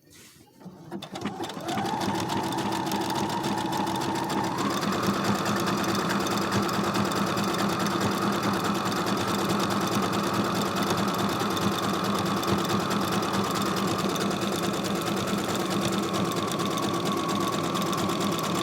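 Brother SQ9285 sewing machine stitching a dense embroidery stitch. It starts about a second in and climbs in speed, speeds up again about four seconds in, then runs steadily.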